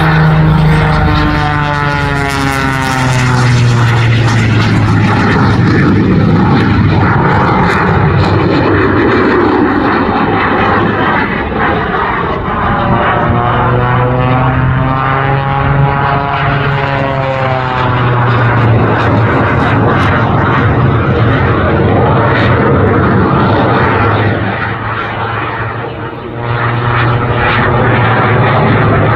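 The Jet Waco biplane in an aerobatic display, its Pratt & Whitney 985 radial engine and propeller running together with a General Electric CJ610 jet engine: a loud, steady engine drone whose tone sweeps up and down as the plane passes, climbs and turns. It dips briefly near the end, then comes back.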